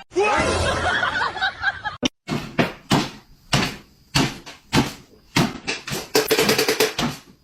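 A short scuffling noise, then a run of sharp knocks or thuds, about one or two a second.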